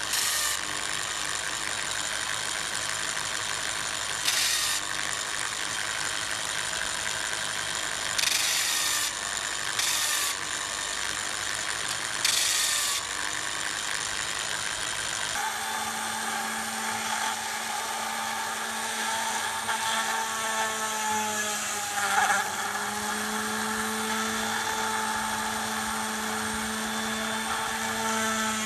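An electric drill spins a sanding disc, with short bursts of grinding hiss as an olive-pit bead is pressed against it. About halfway through, this gives way to the whine of a Dremel-type rotary tool working the olive pit with a thin bit. Its pitch dips briefly under load.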